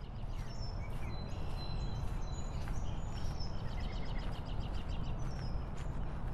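Outdoor ambience: several birds chirping and singing in short repeated calls over a steady low background rumble.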